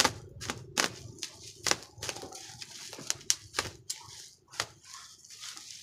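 Box cutter slicing through black plastic mesh wrapping on a parcel, the strands snapping in a quick, irregular string of sharp clicks, about a dozen in all.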